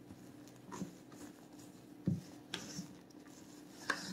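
Angel food cake batter of beaten egg whites, flour and sugar being folded by hand in a stainless steel bowl. A few scattered scrapes and clicks of the utensil against the metal side, and a low bump about two seconds in.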